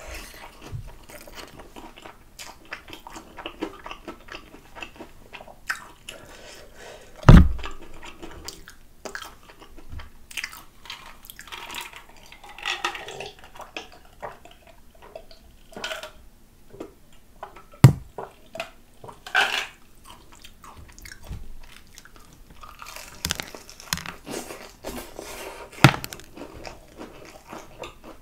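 Close-up chewing and biting of crispy fried chicken drumsticks, with crunches and small crackles from the coating, and a few sharp knocks scattered through. About halfway through there is a drink from a glass.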